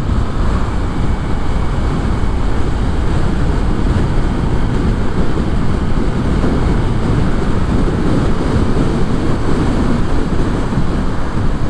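Steady wind rush buffeting the microphone, mixed with road noise, while riding a Yamaha NVX V2 scooter at speed; no clear engine note stands out.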